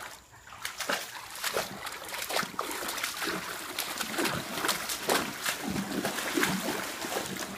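A Caucasian Ovcharka pawing and stepping in the shallow water of an inflatable paddling pool, splashing over and over in an irregular run of short splashes that start about half a second in.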